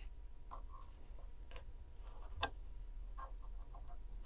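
Faint, irregular small clicks and ticks of flat pliers on craft wire as the wire end is gripped and curled into a tight little circle; one click about two and a half seconds in is the loudest.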